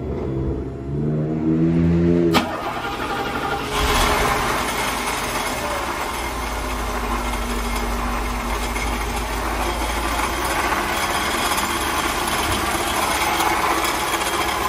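A classic Mercedes V8 engine being started: a short burst of cranking, then it catches about four seconds in and idles steadily.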